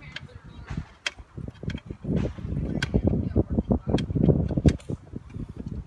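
Irregular knocking, rubbing and clattering from hands and tools working on the car's engine parts, with a few sharp metallic clicks. It is loudest in the middle stretch.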